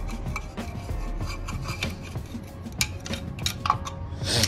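Hand-work on metal motorcycle parts: irregular scraping and rubbing strokes with scattered light clicks and knocks, and a louder scrape near the end.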